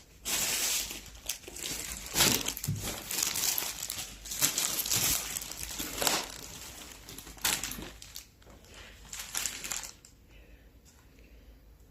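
Food packaging crinkling and rustling as it is handled, in a run of uneven bursts that stops about two seconds before the end.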